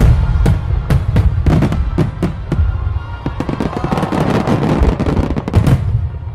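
Fireworks aerial shells bursting in a rapid volley of sharp bangs, with a thick patch of crackling in the middle, over background music. The bangs stop suddenly near the end.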